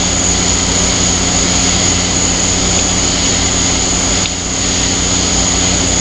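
1984 Hotpoint Quietaire room air conditioner running, heard close to its outside end: a steady rush of the fan over a low electric hum, with a steady high whine above.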